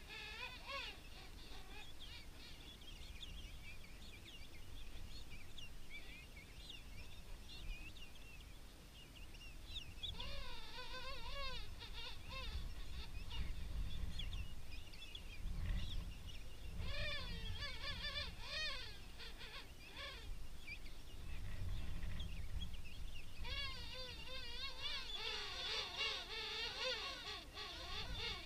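King penguins calling in a colony: warbling, wavering trumpet calls in bouts, about ten seconds in, again near the middle, and a long stretch of many overlapping calls near the end, over a steady low rumble.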